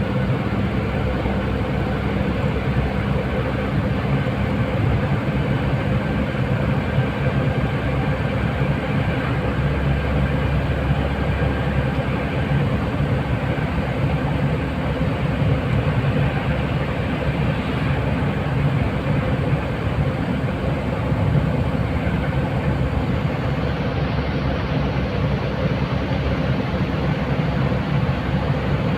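A vehicle driving, with steady engine and tyre noise that carries on without a break.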